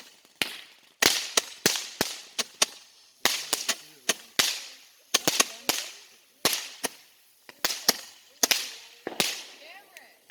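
Fireworks going off: an irregular series of sharp cracks and pops, several a second at times, some followed by a short hissing tail.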